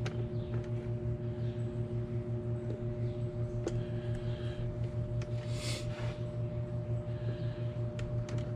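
A steady low machine hum that pulses evenly several times a second, with faint clicks of handling and a short hiss a little past halfway.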